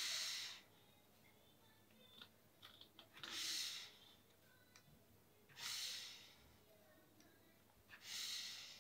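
Felt-tip marker scratching across paper in four short hissing strokes, two to three seconds apart, with faint clicks in between.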